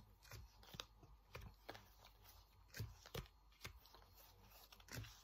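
Faint, irregular soft taps and clicks of playing cards being laid out on a table, about two a second.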